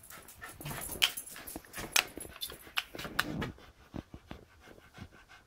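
Sharp clicks and knocks, several over the first three and a half seconds, as a house's front door is unlatched and opened, with a dog whimpering.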